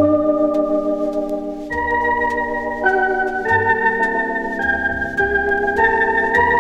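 Organ music from a vinyl record: sustained chords that move to a new chord about every second, over a bass line, with faint record-surface clicks.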